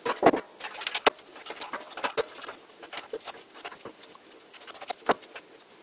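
Steel lathe spindle and its stepped pulley being worked by hand into bronze headstock bearings: scattered small clicks and light knocks as the parts are pushed and turned, the sharpest about a second in and about five seconds in.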